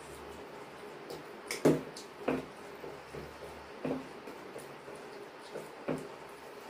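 Eating by hand from stainless steel plates: soft wet squishing of rice being mixed and chewed, with a few sharp clinks of steel bowls and plates. The loudest clink comes a little under two seconds in.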